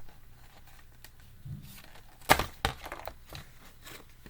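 A plastic action figure toppling over onto a desk: two sharp knocks, a little over two seconds in and a moment later, among quieter handling sounds.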